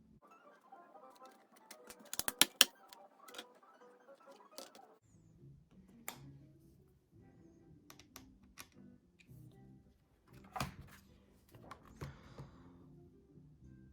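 Background music with a series of sharp clicks and taps from work on the laptop. A quick burst of clicks about two seconds in is the loudest part, followed by scattered single clicks.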